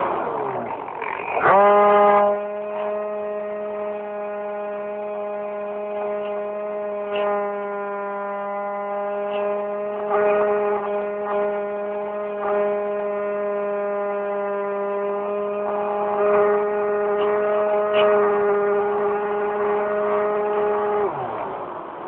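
Electric motor and propeller of an EasyStar RC model plane, heard from a phone riding on board: about a second and a half in it winds up sharply to a steady pitch, holds there, and winds down near the end.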